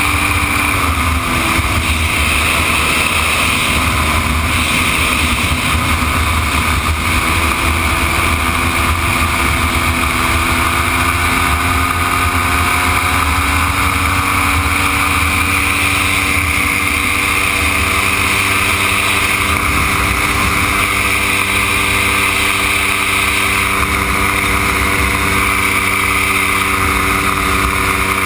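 Dominator gyroplane in flight, heard from an onboard camera: its engine runs steadily under heavy wind rush on the microphone. The engine note drops slightly about a second in, then slowly climbs back and holds.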